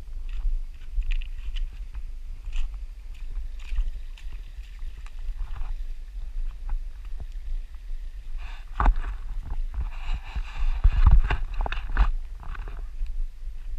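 Irregular clicks and crunches of steps on a stony trail over a steady low rumble. From about nine seconds in, leaves and branches brush past for a few seconds, the loudest part.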